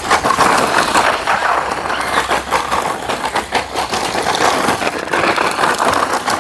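DEERC 9308E 1:16-scale RC monster truck driving, a steady noisy rush of motor and tyres dotted with many small clicks.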